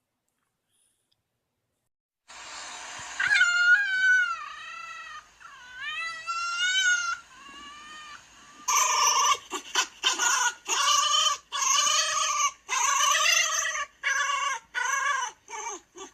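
A fox calling: two drawn-out, high, wavering whines, then a quick run of about ten short whining calls. The calls begin after a couple of seconds of silence.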